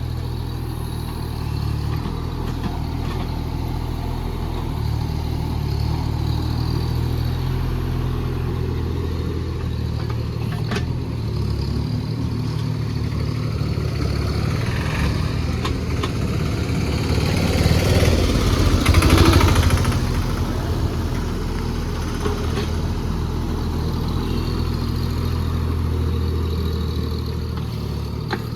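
JCB JS30 Plus mini excavator running and working soil, its diesel engine humming steadily. About two-thirds of the way through there is a louder, rougher stretch lasting a few seconds.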